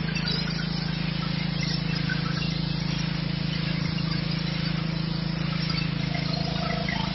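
Petrol-engined high-pressure washer running steadily under load. The engine's steady drone is overlaid by the hiss of the water jet spraying from the lance onto the wall and paving.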